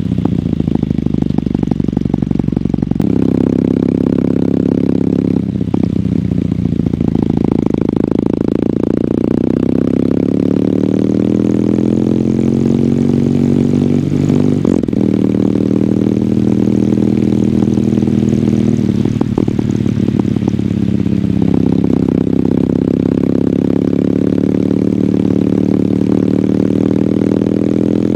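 Kawasaki W800's air-cooled parallel-twin engine through its stock exhaust while riding. The engine note climbs under throttle and drops back several times with gear changes and easing off.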